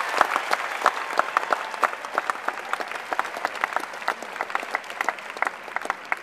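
Tennis crowd applauding at the end of a point: a dense round of clapping that thins out into scattered individual claps and fades away.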